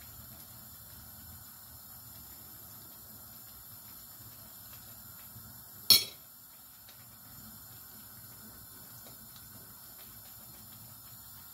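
Thick chickpea and lentil masala paste bubbling steadily as it fries in a frying pan on a gas hob. There is a single sharp knock about six seconds in, and near the end a spoon stirs through the paste.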